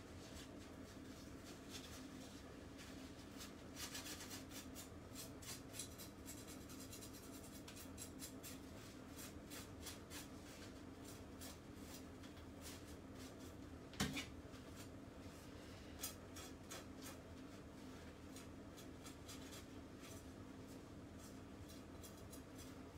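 Knife blade scraping the scales off a salmon fillet on a plastic chopping board: a run of faint rasping strokes, with one sharp knock about two-thirds of the way through and a lighter one soon after.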